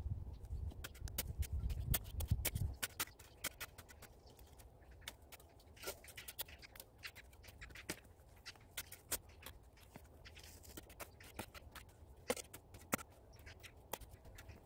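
Shovel digging and scraping into dry soil with small stones, giving irregular crunches and sharp clicks, with a low rumble in the first couple of seconds.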